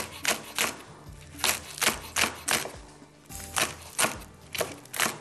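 Kitchen knife chopping spring onions on a wooden cutting board, a quick irregular run of sharp knocks about three a second.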